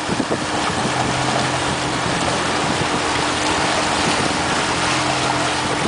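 Motorboat engine running steadily at towing speed, a low even hum under a constant rush of wind and churning water.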